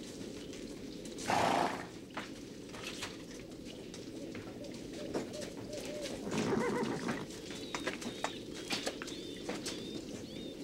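A horse being led on foot, its hooves clopping on a dirt floor. It gives a loud snort about a second and a half in and a whinny around six to seven seconds in. Short high chirps come near the end.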